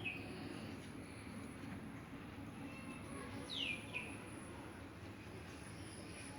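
Japanese quail giving a few short high chirps: one right at the start, then a pair of quick falling chirps about three and a half seconds in, over a steady low background noise.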